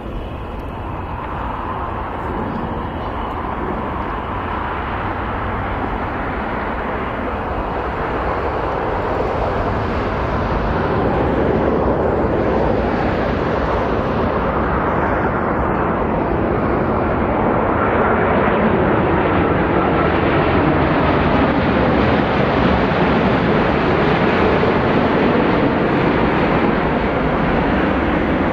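Jet engine noise from a Boeing 787-9 airliner flying low on its landing approach. It grows steadily louder over the first ten seconds or so, then holds loud.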